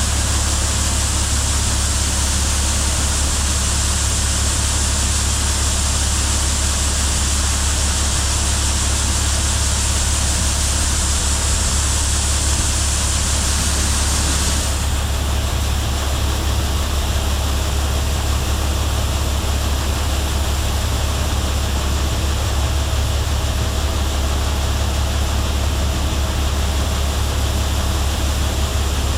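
A vehicle hauling corn drives on, its engine giving a steady low drone under a hiss of wind and road noise, as heard from inside the cab. About halfway through, the high hiss drops off suddenly.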